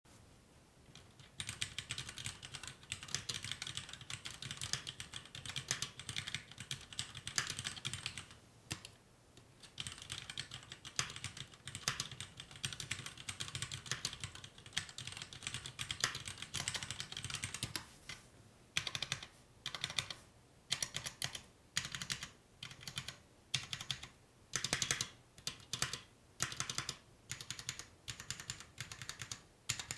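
Cherry MX Board 3.0S RGB mechanical keyboard with Cherry MX Red linear switches being typed on. Fast, continuous typing begins about a second and a half in, breaks briefly near a third of the way through, then gives way in the second half to slower, separate keystrokes in short clusters.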